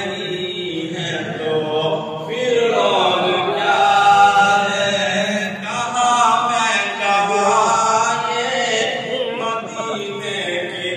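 A man's solo voice chanting a naat, a devotional poem in praise of the Prophet, into a microphone with no instruments. He sings in long melodic phrases with held, ornamented notes and short pauses for breath between them.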